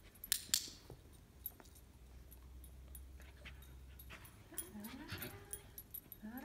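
A dog whining briefly a few times about five seconds in. Before that, two sharp clicks come within the first second.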